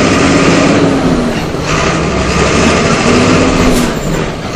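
Volksbus 17.210's MWM 6.12 TCAE six-cylinder turbodiesel running, with a whine that rises and falls twice.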